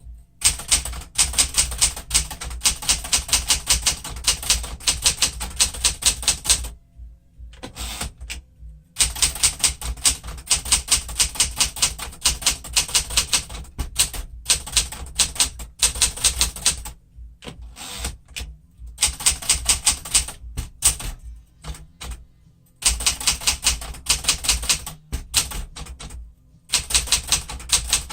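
1972 Smith-Corona Classic 10 manual typewriter being typed on: fast runs of key strikes, several a second, broken by short pauses.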